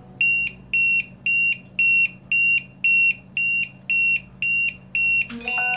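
Water leak detector alarm sounding a fast, even series of high-pitched beeps, about two a second: its contacts are touching water. Near the end a short chime cuts in.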